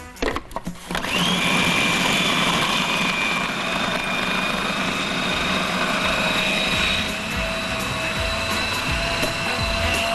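A few light knocks, then an electric blender switched on about a second in: its motor whine climbs quickly and then runs steadily.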